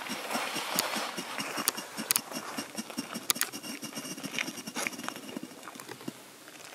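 Monkey Mania MM-F1816 Ghost Fountain, a 200-gram ground firework fountain, giving its ghost-strobe finale: a rapid, even rattling with a few sharp cracks. It dies away near the end.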